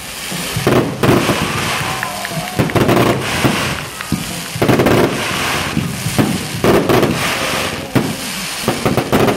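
Sea surf washing onto a beach, a loud rushing noise that surges and falls back about every two seconds.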